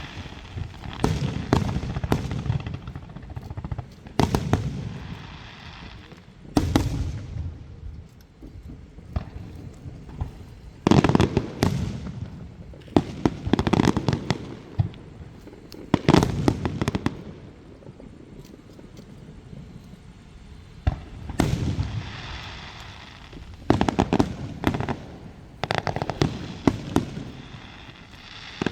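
Aerial fireworks shells bursting: a string of sharp bangs with rumbling, echoing tails. Some come singly, others in quick crackling clusters, with short quieter gaps between volleys.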